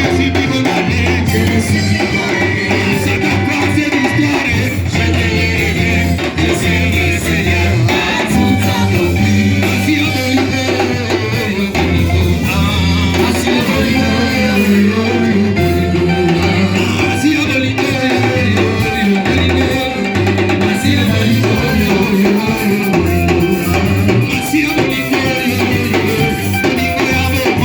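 Live church worship band playing continuous music: electric guitar, bass and drum kit keeping a steady beat, with singing.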